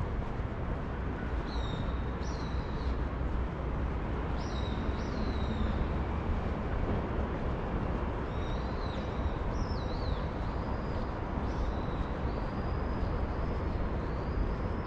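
Steady low rumble of city street noise, with high chirping whistles over it, some short and sweeping, some held longer, starting about a second and a half in.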